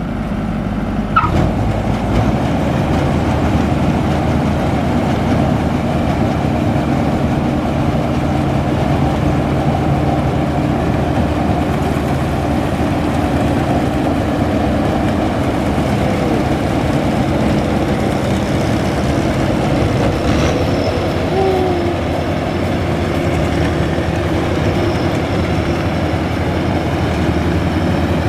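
Maxxi Bimo NDR 102L combine harvester running steadily as it travels, with a dense rattling over its engine hum.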